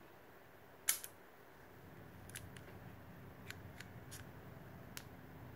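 Mamiya Sekor 80mm f/2.8 twin-lens-reflex lens's leaf shutter tripping with a sharp double click about a second in. Several lighter mechanical clicks follow as the shutter mechanism is handled.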